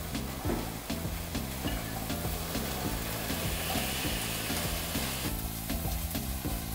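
Cut nopal (cactus paddle) strips sizzling in a hot, dry stainless steel pot with no oil or water, with short clicks of a spatula as they are stirred. The dry heat is making them release their slime.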